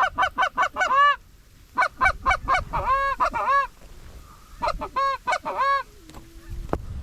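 Goose honks and clucks in quick, even runs of about five a second, in three bursts with pauses between, followed near the end by a short low drawn-out note.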